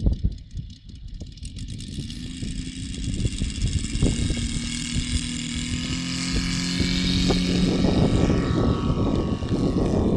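The three-cylinder four-stroke radial petrol engine (Saito FG-84 R3) of a large model AT-6 Texan is throttled up for the takeoff run across grass, its note rising and growing louder. Near the end the pitch falls away as the plane lifts off and flies off. Wind rumbles on the microphone throughout.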